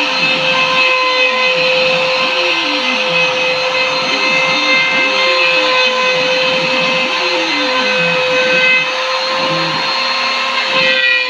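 CNC machine running: the spindle gives a steady high whine, while lower motor tones step up and down in pitch every second or two as the axes move the tool.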